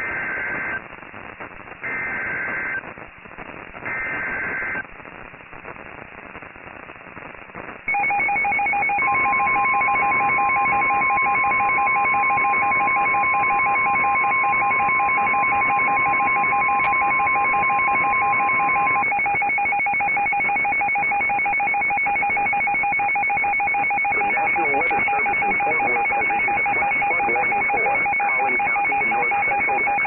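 NOAA Weather Radio alert for a flash flood warning. It opens with three short bursts of warbling two-tone SAME header data about a second apart. About eight seconds in, a loud, rapidly pulsed two-pitch alarm from a weather-radio receiver starts and keeps going. Under it, the steady high warning alarm tone sounds for about ten seconds.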